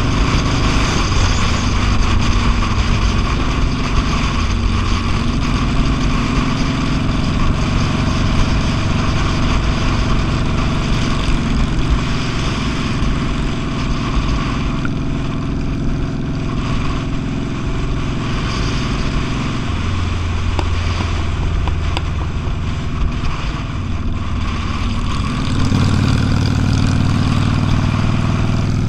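Motorcycle engine running under way with steady road and wind noise; the low engine note shifts about two-thirds through and again near the end.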